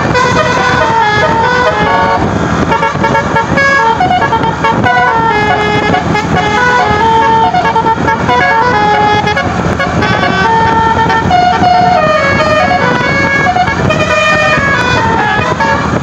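Indonesian bus 'telolet basuri' musical air horn playing a long melody, several horn tones sounding together and stepping from note to note without a break.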